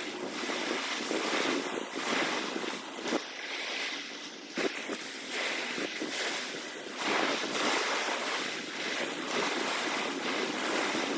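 Choppy sea water splashing and sloshing in surges that swell and fade every second or two, with a couple of brief knocks midway.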